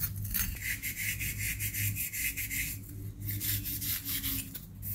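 Scrub pad rubbing back and forth in quick, repeated strokes on a steel cup, scouring off hard-water scale.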